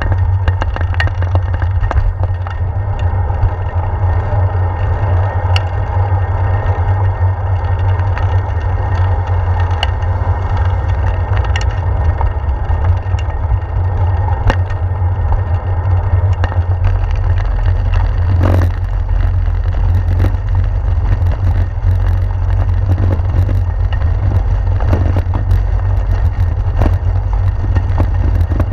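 Wind buffeting a handlebar-mounted GoPro's microphone on a moving bicycle, a loud steady low rumble, with scattered clicks and rattles from the bike and camera mount shaking over the road surface.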